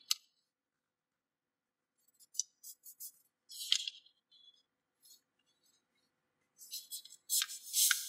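A sheet of paper being handled and creased by hand: short crinkles and rustles at irregular moments with quiet gaps between, busiest and loudest near the end.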